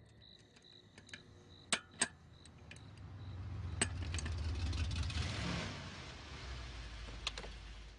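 A few sharp metallic clinks of hand tools at a workbench, over faint crickets chirping. Then a vehicle engine approaches and pulls up, its rumble swelling and then settling to a low steady running sound.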